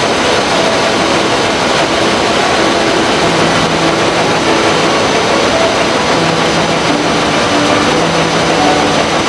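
Rows of terry towel weaving looms running together, making a loud, steady, unbroken din.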